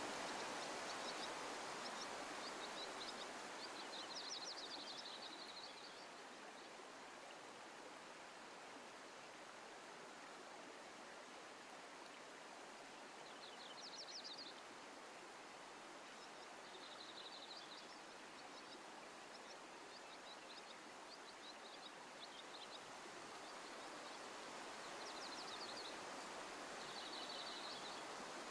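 Steady rush of a shallow river flowing over rocks, with birds giving short, rapid high chirping calls again and again.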